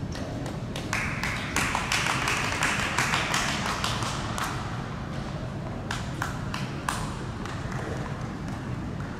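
Light applause from a small crowd of spectators for a few seconds. Then a tennis ball is bounced a few times on the hard court before a serve, as single knocks around six to seven seconds in.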